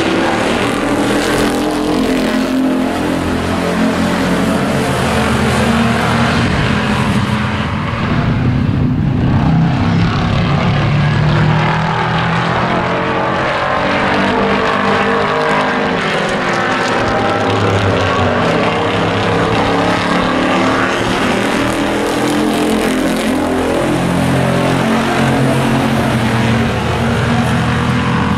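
Engines of a pack of hobby-class racing pickup trucks running at speed on an oval track, several engine notes overlapping and rising and falling as the trucks pass.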